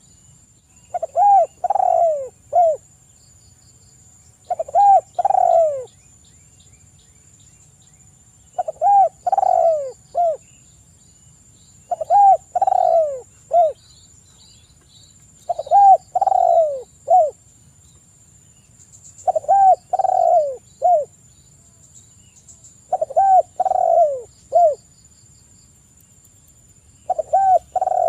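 Spotted dove (tekukur) singing its 'kuk 3' cooing song: a short phrase of a few falling coos, repeated about every four seconds. It is a typical lure call for drawing other tekukur to sing.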